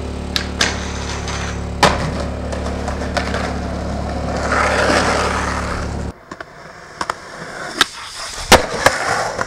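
Skateboarding on concrete: a rolling swell and sharp clacks of the board popping and landing, several of them in the last few seconds. For the first six seconds a steady low hum runs underneath, then cuts off suddenly.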